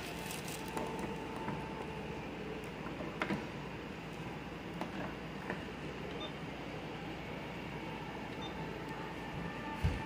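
Steady hiss and room noise with a few faint clicks and a short low thump near the end.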